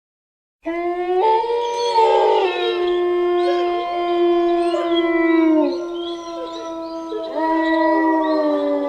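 Several wolves howling together, their long howls overlapping at different pitches and sliding down at their ends. The howling starts abruptly about half a second in, and a fresh howl rises near the end.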